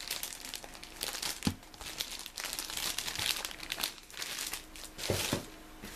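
Crinkling of the plastic bags that hold a plastic model kit's parts, handled and shifted about, with a couple of soft knocks about a second and a half and about five seconds in.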